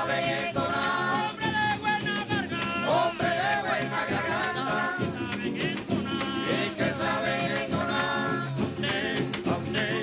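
Venezuelan tamunangue music: a voice singing over strummed cuatros and small guitars, with maracas shaking a steady rhythm.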